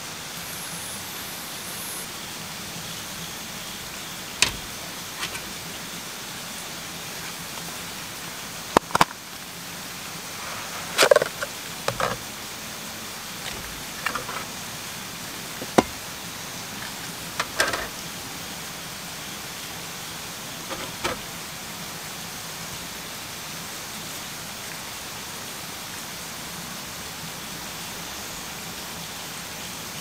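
Camping gear being handled on a camp table: about ten sharp knocks and clinks of gas canisters and cases being picked up and set down, over a steady hiss.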